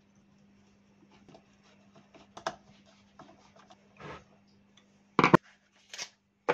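A screwdriver and small metal engine parts knocking and clinking against each other and the wooden workbench while a pocket-bike engine is taken apart. The knocks are scattered and irregular, with the loudest clatter about five seconds in.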